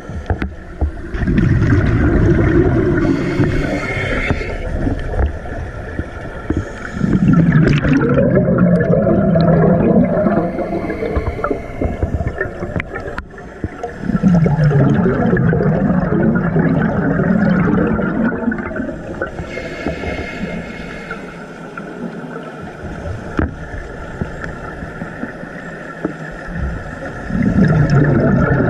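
Scuba diver's exhaled bubbles gurgling up from the regulator underwater, in long bursts every several seconds with quieter pauses between breaths.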